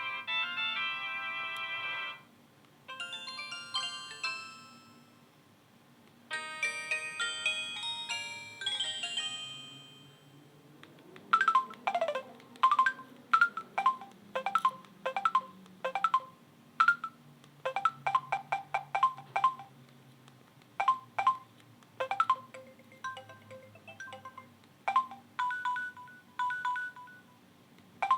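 Samsung SGH-E116 mobile phone playing its short polyphonic message tones through its small speaker: the tail of a fanfare, then two brief chords, a higher one and then a lower one. From about eleven seconds in, a long run of short, sharp clicking beeps follows, among them the phone's calendar alert tones, one of them a tick-tack.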